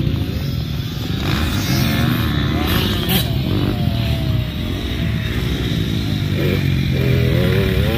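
Dirt bike engine running steadily, with a person's voice over it near the end.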